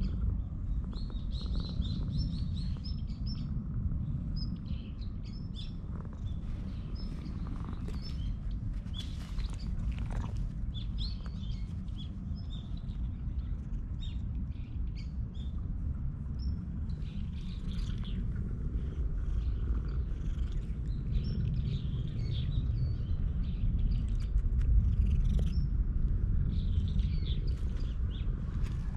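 Ginger cat purring steadily as it is stroked, a low rumble, with small birds chirping briefly and repeatedly in the background.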